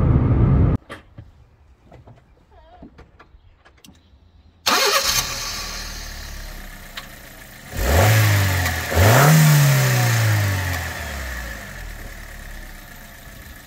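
Honda Logo's 1.3-litre four-cylinder engine, bonnet open, starts suddenly about a third of the way in and runs. It is then revved twice, the second rev higher and longer, and falls back toward idle.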